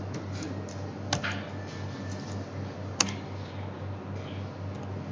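A few scattered keystrokes on a computer keyboard, the sharpest about three seconds in, over a steady low electrical hum.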